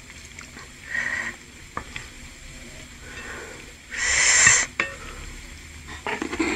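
Wooden spoon and wooden fork working a chewy bakso aci apart in a bowl of spicy broth: soft scraping and stirring in the liquid. About four seconds in there is one louder swish as the spoon scoops a piece out of the broth.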